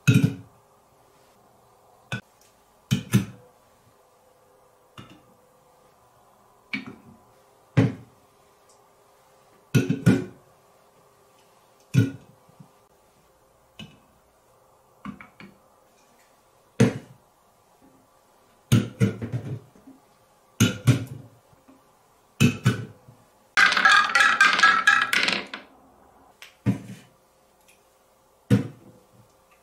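Aluminium Coca-Cola cans being set down one at a time on top of a stacked column of cans, each a sharp metallic clink with a low knock, spaced a second or two apart. About three-quarters of the way through comes a busier stretch of clattering lasting about two seconds.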